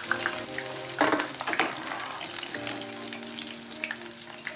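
Paneer cubes coated in cornflour, deep-frying in hot oil with a steady sizzle. A metal slotted spoon knocks against the pan a couple of times, about a second in and again shortly after, as the fried pieces are scooped out.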